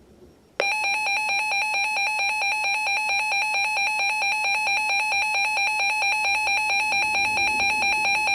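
Reecom NOAA weather alert radio sounding its alarm tone, which starts abruptly about half a second in and holds steady: a loud, buzzy electronic tone with a fast, even pulse. It signals that a new severe thunderstorm warning is coming in.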